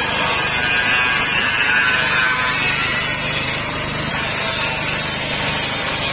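Corded angle grinder with a cutting disc slicing through a steel profile post: a loud, steady, high-pitched grinding whine of disc on metal.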